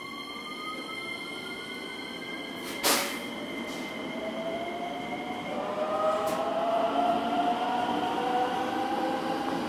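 Electric train's traction motors whining, rising in pitch as it picks up speed. A sharp knock comes about three seconds in. From about halfway a second, louder set of whines rises as well.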